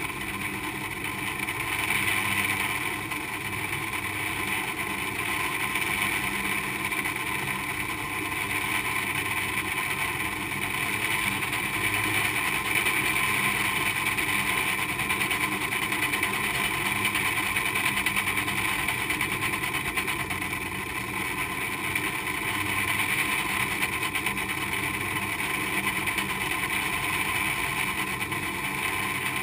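San Francisco cable car haul cable running over a large sheave below the street: a steady mechanical whirring with several held tones that never stops or changes.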